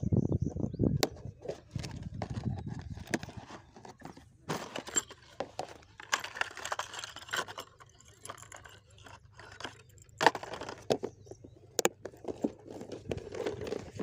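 Handling noise from a clear plastic tackle box and plastic container: scattered clicks, rattles and rustling, with a few sharper clicks, as the items are handled and pushed into a nylon tackle bag.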